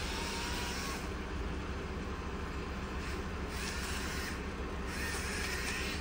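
Tree crew's work truck and wood chipper engine running steadily with a low hum, with three brief rushing surges in the higher range, each under a second.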